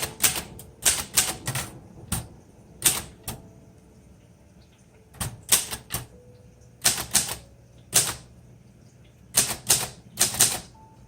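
A 1956 Royal Quiet De Luxe manual typewriter being typed on, its keys striking in short clusters of a few sharp clacks each, word by word. There is a pause of about two seconds near the middle.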